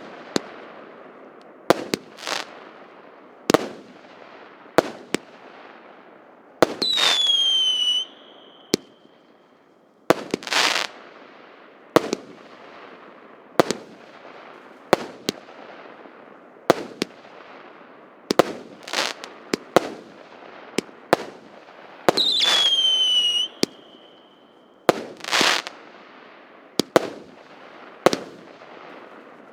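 Consumer firework battery (cake) firing shot after shot, roughly one every one to two seconds, each a sharp bang followed by a fading crackle. Twice, about a quarter of the way in and again about three quarters through, a loud whistle falls in pitch for about a second.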